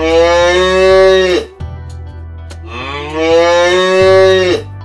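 A cow mooing: two long moos, the first already under way and ending about a second and a half in, the second beginning about a second later and ending shortly before the end.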